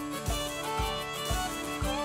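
Instrumental background music with a steady beat, about two a second, under a melody.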